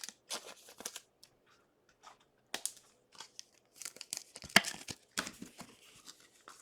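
Trading cards and their plastic being handled: scattered short crinkling and sliding rustles, with one sharper swipe about four and a half seconds in.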